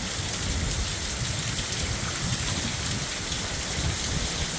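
Heavy thunderstorm rain falling steadily, an even hiss with no breaks.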